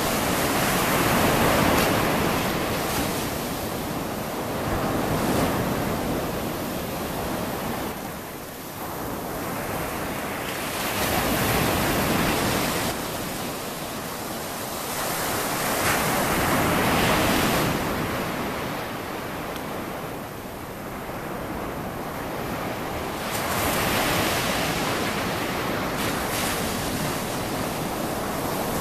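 Ocean surf breaking on a beach. The roar of the waves swells and eases every five or six seconds as each wave comes in and washes up the sand.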